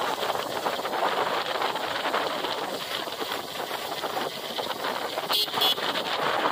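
Motorbike running along a road, its engine and the rush of wind over the microphone making a steady noise. A brief high-pitched double sound comes about five seconds in.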